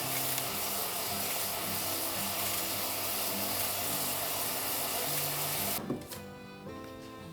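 Food sizzling in a frying pan over soft background music. The sizzle cuts off suddenly about six seconds in, followed by a short knock, leaving only the music.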